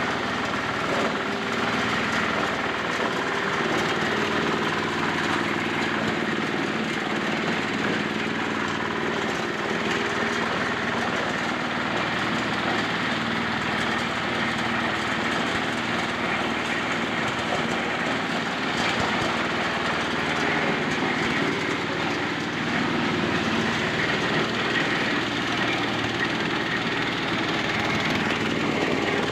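A corn sheller machine running steadily: its small engine drones while the shelling drum rattles without a break.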